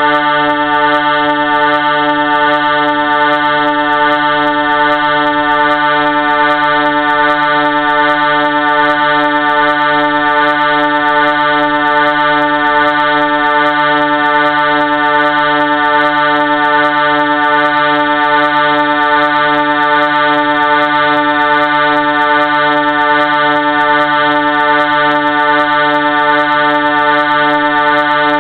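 Train air horn sounding one continuous, loud chord of several steady tones, held without a break or change in pitch.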